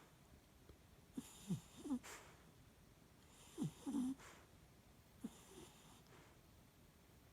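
Sleeping Yorkshire terrier snoring faintly in three short bouts, each with a quick falling squeak; the last bout is the weakest.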